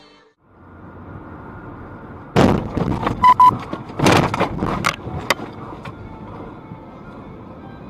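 Car at highway speed with steady road and tyre noise, hit by a burst of loud bangs and thuds over about three seconds as it strikes something on the road. Two short beeps sound in the middle of the impacts.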